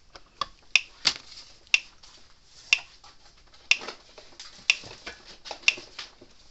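Speedrite 980 mains fence energiser pulsing, a sharp tick about once a second as each high-voltage pulse fires. It is putting out about 9,000 volts unloaded, the sign of a working unit.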